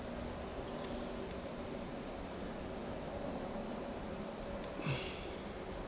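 Quiet background: a steady high-pitched whine over a low hum, with one brief small knock about five seconds in.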